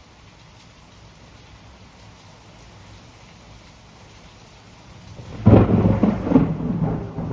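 Steady rain falling, then about five seconds in a loud rumble of thunder breaks in, swelling in several peaks and still rolling at the end.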